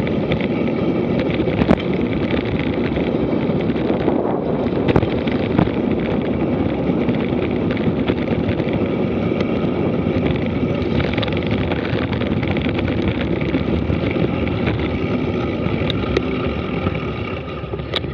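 Mountain bike rolling fast downhill over a dirt track: steady tyre and rolling noise mixed with wind buffeting the microphone, with a few sharp knocks from bumps, about two seconds in and twice around five seconds.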